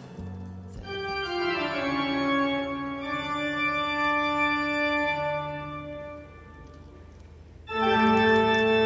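Pipe organ of Kaliningrad Cathedral playing held chords that change every second or two. It drops to a soft passage about six seconds in, then swells into a loud full chord near the end.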